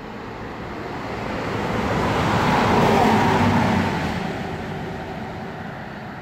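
A vehicle passing at speed: its noise builds to a peak about three seconds in and then fades, with its pitch dropping as it goes by.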